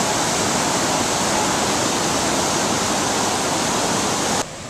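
Whitewater rapids of the Potomac River rushing through a rocky gorge: a loud, steady rush of water. It cuts off suddenly near the end.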